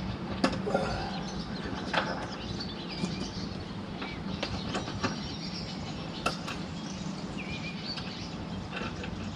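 Scattered clinks and knocks of hand work on metal as a truck mud flap bracket is fitted, over a steady low hum, with a few faint bird chirps.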